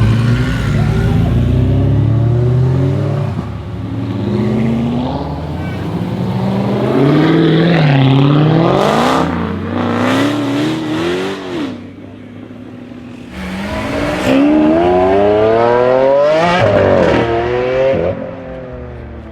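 Twin-turbo Audi R8 V10 engine revving and accelerating hard, its pitch climbing and falling in several passes, with one long rising pull near the end that then drops off.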